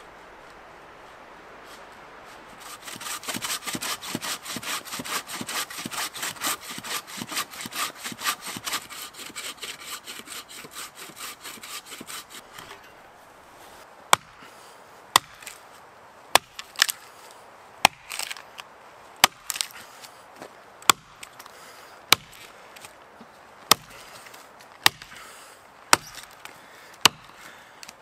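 A hand saw cutting into a dead standing alder with quick, even strokes for about ten seconds. Then about a dozen sharp axe chops into the trunk, roughly a second apart.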